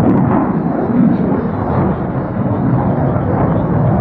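F-35A Lightning II fighter jet passing overhead, its single afterburning turbofan engine making loud, steady, deep jet noise.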